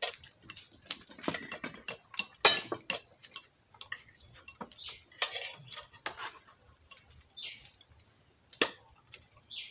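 Metal spoons clinking and scraping against plates and a bowl as food is eaten and served: irregular sharp clinks with short scrapes between them, two louder clinks about two and a half seconds in and near the end.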